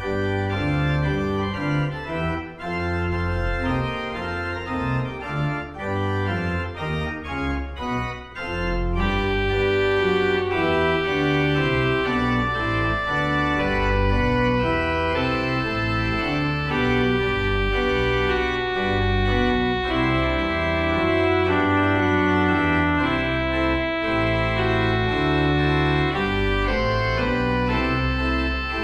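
Church organ playing the closing voluntary after the dismissal. It opens with choppy, detached chords for about the first eight seconds, then moves into full, sustained chords over deep bass notes.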